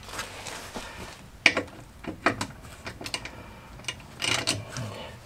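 Ratchet wrench clicking in several short runs of strokes while undoing the 13 mm bolts of a front anti-roll bar clamp.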